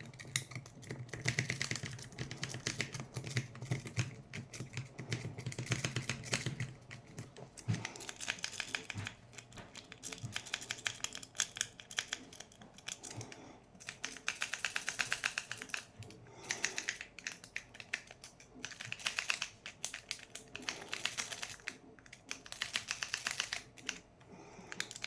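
A rake pick worked rapidly in and out of the keyway of an Abus-branded wafer bike lock, the wafers clicking in fast runs of a few seconds with short pauses between.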